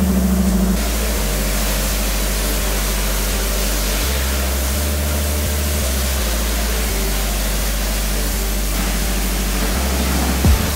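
Pressure washer spraying a steady hiss of water onto a car body, starting about a second in, over background music with a bass line.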